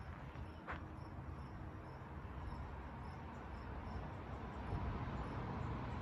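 An insect chirping faintly in an even rhythm, about three high chirps a second, over a low outdoor rumble that grows louder toward the end, with one short click about a second in.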